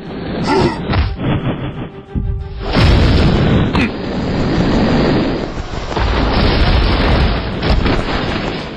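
Animated fight soundtrack: music with a heavy explosion-like crash about three seconds in. The crash runs on as a long, loud impact effect for several seconds while the ground is smashed up.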